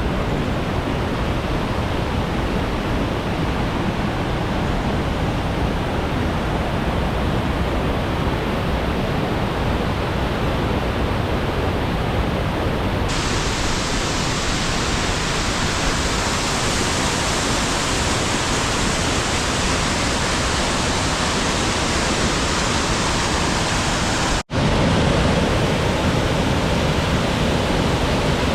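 Waterfall pouring: a loud, steady rush of falling water. The rushing turns abruptly brighter about halfway through, and near the end it cuts out for an instant and comes back slightly louder.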